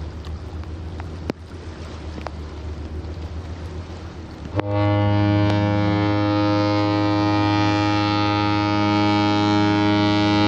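A ship's horn sounds one long, deep blast. It starts abruptly about four and a half seconds in and holds steady for around six seconds, over a low steady hum and wind noise.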